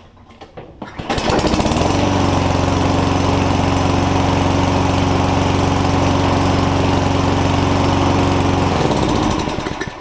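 Walk-behind lawn mower's small Tecumseh engine pull-started: it catches about a second in, revs up and runs smoothly at a steady speed, not surging or coughing, showing the freshly cleaned carburetor is feeding fuel again. It is shut off near the end and winds down.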